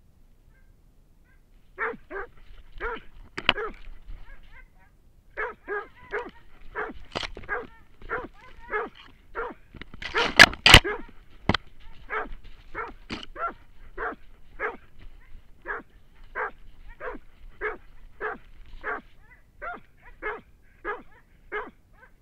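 Hunting dog barking steadily and repeatedly, about two barks a second, close to the microphone, with a brief pause early on. About halfway through there is a louder burst of noise.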